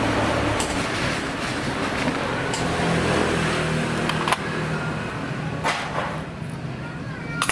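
Steady background traffic noise, with a few light clicks of small metal carburetor parts being picked from a steel parts bowl.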